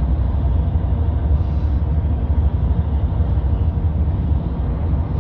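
Steady road and engine rumble of a vehicle driving at highway speed, heard from inside the cabin.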